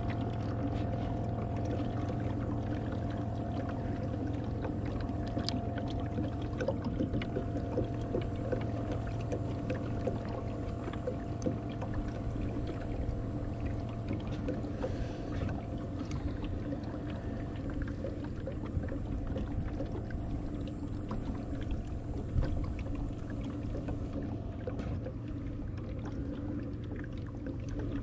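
Water trickling and lapping against a kayak's hull as it moves along, with faint scattered drips and ticks over a steady low hum.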